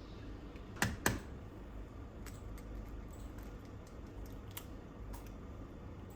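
Kitchen handling sounds: two sharp taps close together about a second in, then scattered light clicks.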